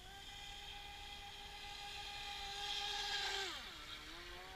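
Water-cooled brushless RC speedboat running flat out: a steady high electric-motor whine with a hiss that grows louder for about three seconds. The pitch then drops steeply about three and a half seconds in and climbs again near the end.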